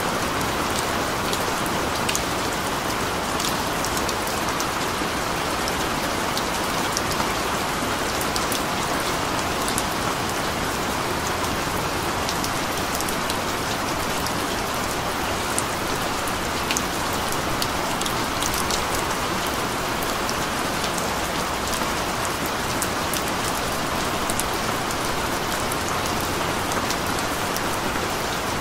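Steady rain falling, a dense even hiss with many individual drops ticking through it.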